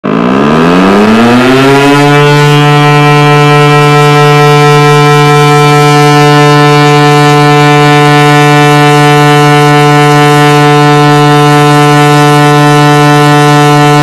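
Siren winding up: its pitch rises over about the first two seconds, then holds one loud, steady tone.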